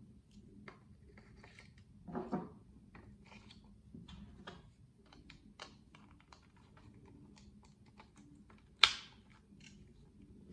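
Small plastic clicks and handling of a Nikon Coolpix L1's battery and memory card compartment as an SD card is pushed in, with a brief louder rattle about two seconds in. About nine seconds in comes one loud, sharp snap as the compartment door clicks shut.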